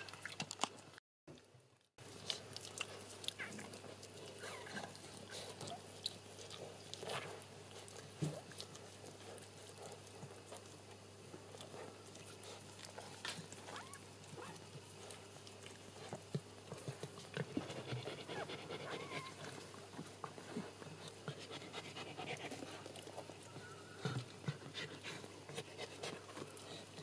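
A Shetland sheepdog bitch in labour panting, with scattered soft clicks and rustles as she moves on the towels.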